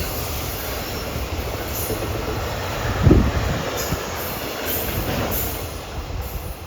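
Joban Line commuter train running on the rails: a steady low rumble with one louder thud about three seconds in.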